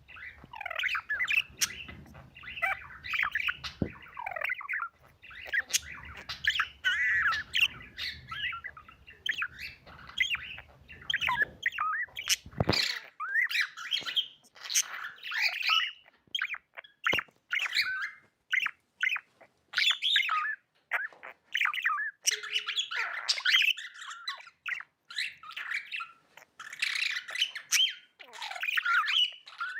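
Budgerigars chirping and chattering in a fast, continuous warble of short notes. A faint low hum underneath stops abruptly about twelve seconds in.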